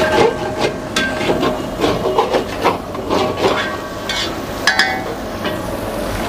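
Long steel spatula scraping and knocking against a steel pan, in repeated irregular strokes with a faint metallic ring. It is stirring thick onion-and-spice masala paste as it fries down (bhuna).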